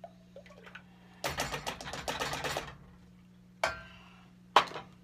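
Kitchen containers handled on the counter: a rapid clicking rattle for about a second and a half, then two sharp knocks about a second apart.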